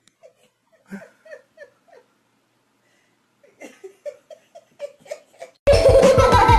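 A person laughing in short repeated bursts, in two runs of giggles. Loud music starts abruptly near the end.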